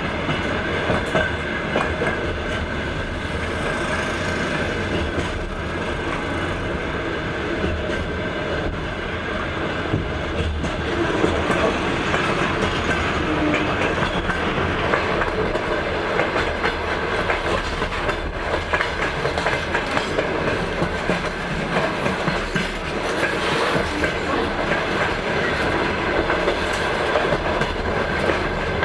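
Wheels of a passenger train clattering over the rail joints at running speed. A steady rumble with a dense run of clicks and rattles.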